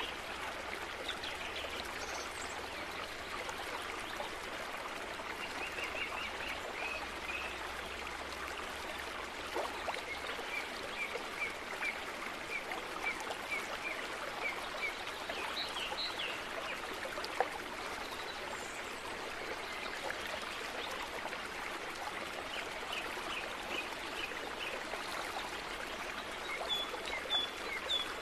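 Steady background hiss, with runs of quick, evenly spaced high chirps now and then and a single faint click.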